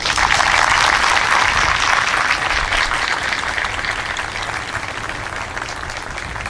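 Audience applauding, starting all at once and slowly dying down.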